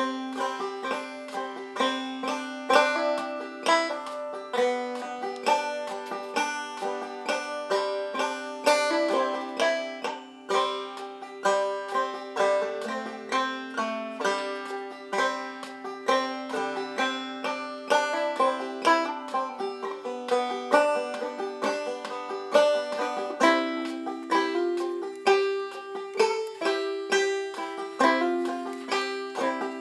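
Background music: a fast instrumental tune of quickly plucked strings, many notes a second, with nothing in the bass.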